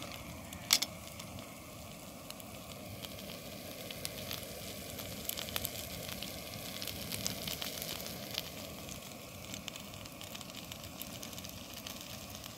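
Chicken chow mein sizzling and crackling in a frying pan on a gas camping stove, with one sharp tap about a second in.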